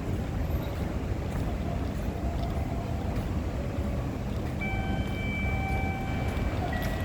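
Steady low rumble of ambient noise inside a large railway station building, with a few held electronic tones coming in about two-thirds of the way through.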